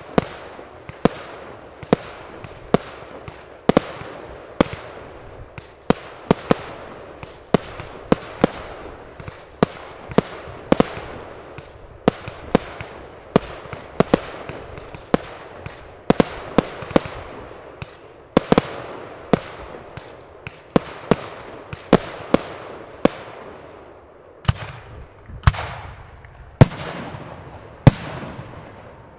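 Aerial firework shells bursting in a steady run of sharp bangs, one or two a second, each trailing off in an echo. In the last few seconds come heavier, deeper booms from larger shells.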